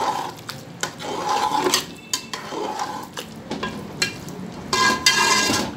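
A metal spatula stirring thick aloo qeema in an aluminium pot: irregular scrapes and clinks of metal against the pot's sides and bottom, with a longer, louder scrape near the end.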